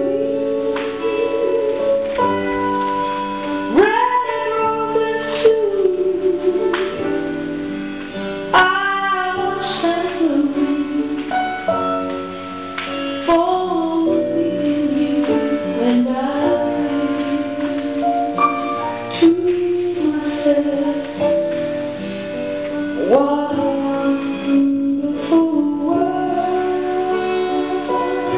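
Music: a song with a singing voice that holds long notes and slides between them, over a plucked-string accompaniment.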